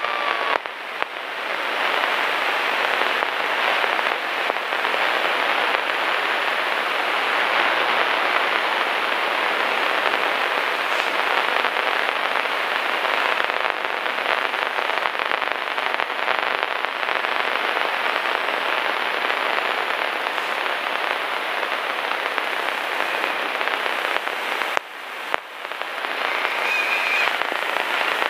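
Engine, propeller and wind noise of a single-engine light airplane on landing, heard as a loud, steady, rough rush. It dips sharply for a moment near the end, then picks up again.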